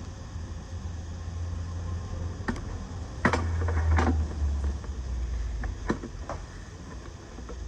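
Milling machine table being cranked along its Y axis: a low rumble with several sharp knocks and clicks, the loudest about three seconds in.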